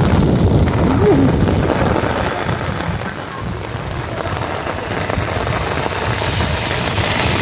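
Heavy rain falling in a strong wind, with wind buffeting the microphone in a low, restless rumble.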